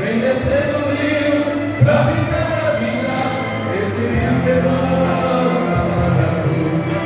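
Live Christian worship song: voices singing over band accompaniment, with sustained bass notes underneath.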